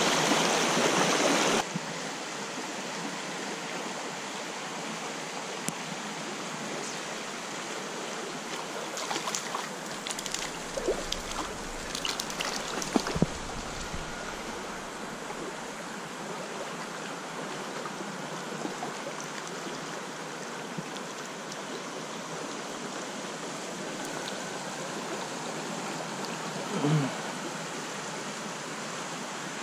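Small trout stream running steadily over riffles, louder for the first second or so. A scatter of small clicks and rustles comes about ten to fourteen seconds in, and a brief low sound just before the end.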